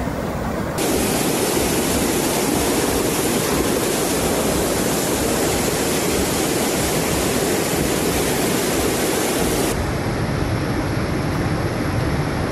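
Muddy floodwater rushing past in a fast current: a steady, loud rushing noise. It changes abruptly about a second in and again near the end as one flood clip cuts to the next.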